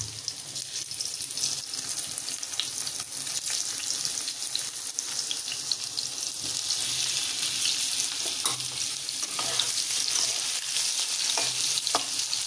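Boiled potatoes frying in hot oil in a kadai, a steady sizzle that grows a little louder in the second half. A few sharp clicks of a utensil against the pan come through it.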